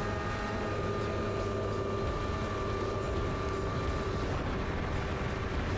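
Polaris snowmobile running at speed: a steady engine drone over the rumble of the track, heard from on board the sled.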